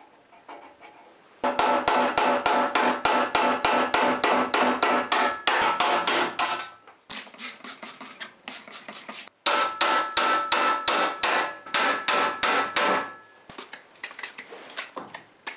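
Hammer striking a short steel punch to drive stuck roll pins out of a pallet truck's wheel supports, with rapid blows about four or five a second, each ringing metallically. The blows come in two long runs a few seconds apart, with a few lighter taps between them.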